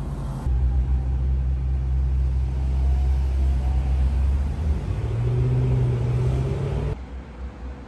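A motor vehicle's engine rumbling low and close, shifting up to a somewhat higher pitch about five seconds in; the sound cuts off abruptly near the end.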